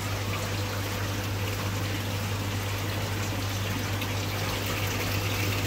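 Steady trickling and splashing of water running through aquarium sump filters and back into the tanks, over a constant low hum of pumps.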